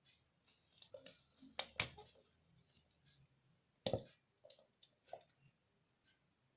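Scattered small clicks and taps of hands handling wires and small parts, with sharper knocks just under two seconds in and about four seconds in.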